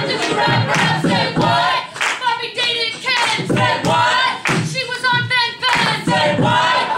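Several improv performers singing a rhythmic chorus together over a beatboxed beat, with the audience clapping along to the beat.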